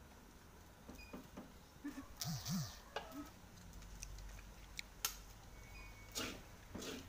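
Scattered light clicks and scrapes of a spoon and a wooden spatula against a steel wok of fried rice. Near the end come a few short scraping strokes as the crust of rice stuck to the wok is scraped up.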